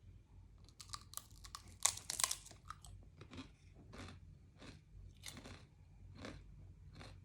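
Crunchy garlic-bread-flavoured chip being bitten into and chewed close to the microphone: a burst of sharp crackling bites, then steady chewing crunches about one and a half a second.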